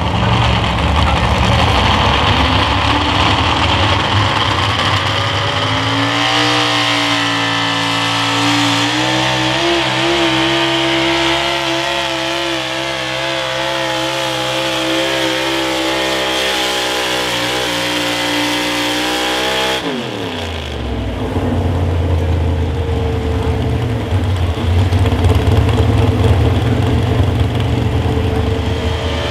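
Super stock 4x4 pulling truck's engine running flat out while dragging a weight-transfer sled. Its pitch climbs through the pull, then drops sharply about twenty seconds in as the run ends, and it keeps running lower and loud.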